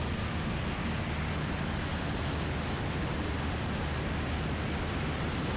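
Cockpit noise of an American Champion Super Decathlon: its four-cylinder Lycoming engine and propeller droning steadily, under a constant rush of air noise.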